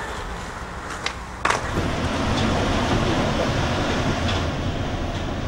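Skateboard wheels rolling on pavement with two sharp clacks about a second and a half in, then the steady low rumble of a metro train running.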